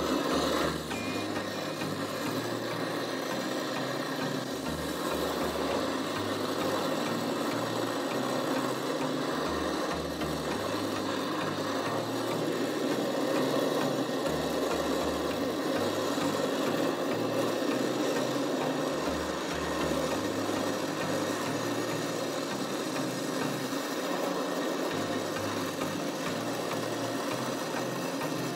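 Gas torch burning with a steady rush of flame, heating fine silver in a crucible to melt it for casting.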